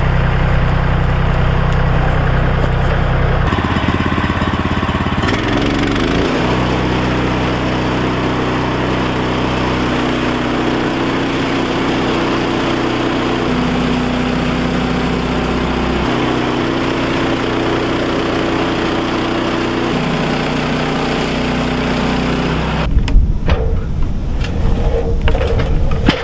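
Small gasoline engine of a portable bandsaw mill running steadily while the band blade cuts through a poplar log, its pitch shifting in steps as the load changes. Near the end the cutting noise stops and a few sharp knocks follow.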